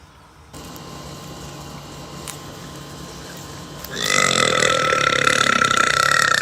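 A woman's long, loud burp starting about four seconds in and lasting over two seconds, one of the repeated belches that the video puts down to acid reflux.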